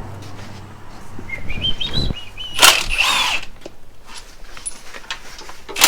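Two short whirring bursts of a power tool, the pitch rising and falling within each, after a brief run of squeaks.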